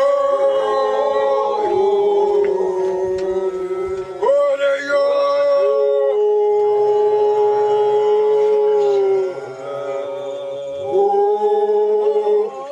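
Several voices howling or singing long held notes together, each note scooping up in pitch as it starts; a long note runs through the middle, then the voices fall away and come back near the end.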